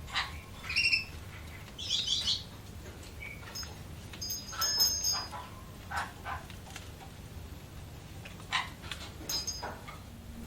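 Budgerigars chirping in short, scattered calls and whistled notes, a few of them louder bursts, over a steady low hum.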